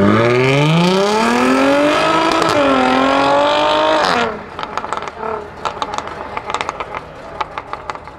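Jaguar F-Type coupe's supercharged V6 accelerating hard, revs climbing for about four seconds with a brief dip at a gear change, then cutting off suddenly as the throttle closes. A run of sharp exhaust pops and crackles on the overrun follows as it drives away.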